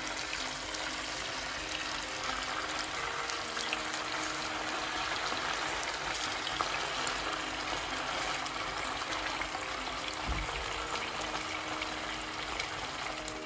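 Salmon steaks sizzling in hot oil in a frying pan: a steady frying hiss speckled with many small spattering pops.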